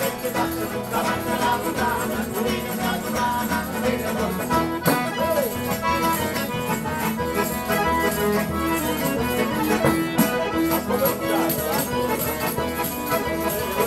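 Instrumental music playing, with sustained notes and a short melodic figure that repeats every second or so.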